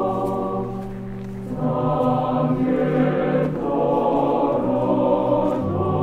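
Background choral music: a choir singing slow, sustained chords that change about a second and a half in and again near the end.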